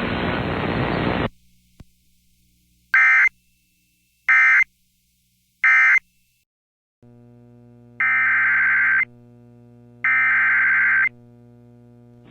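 Emergency Alert System SAME digital data bursts, a harsh warbling screech. Three short bursts about a second and a half apart, the end-of-message code closing one alert, then two longer bursts about two seconds apart over a steady electrical hum, the header code opening the next alert. A hiss cuts off about a second in, before the bursts.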